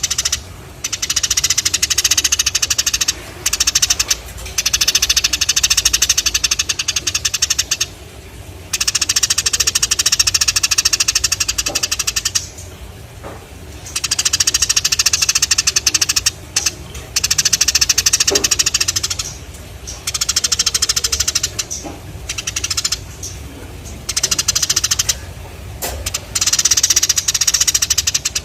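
Eurasian tree sparrows chattering in long, rapid bouts of a few seconds each, broken by short pauses.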